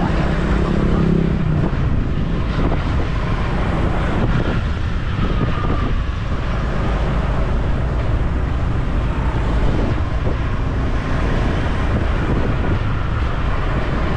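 Steady wind rush on the microphone mixed with road and traffic noise while riding along a road. A low engine hum fades out about a second and a half in.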